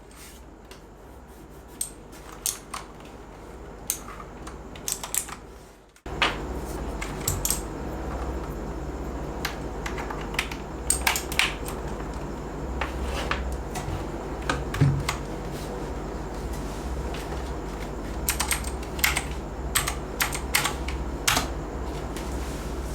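Keys of a Fantech MaxFit61 mechanical keyboard clicking as they are pressed, in scattered, irregular presses over a steady low hum. The background drops out abruptly about six seconds in and comes back louder.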